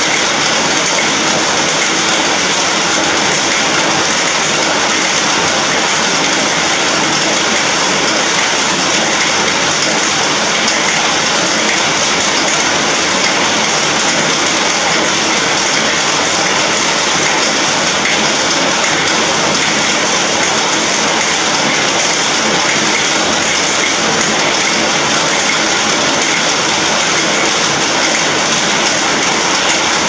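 Rain falling on an iron roof: a loud, steady hiss that does not let up.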